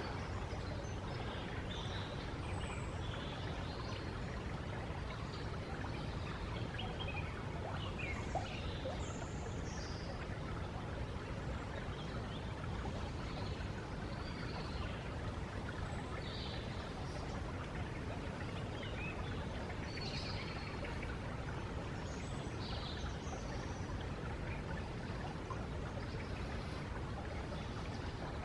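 Flowing stream water running steadily, with birds singing in short scattered calls throughout.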